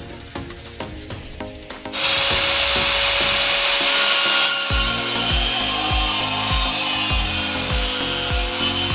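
A power tool starts about two seconds in and runs steadily with a hissing rasp and a steady motor whine, over background music whose low beat comes in about halfway through.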